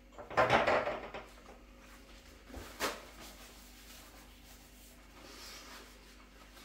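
Rustling and tearing of kitchen paper as a sheet is pulled off a roll, then a single sharp knock about three seconds in.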